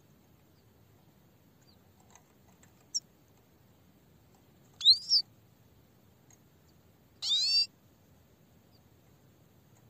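Grey-headed goldfinch calling in short, high-pitched notes: a small chirp about three seconds in, two loud sweeping notes about five seconds in, and a longer, harsher call of about half a second near seven seconds.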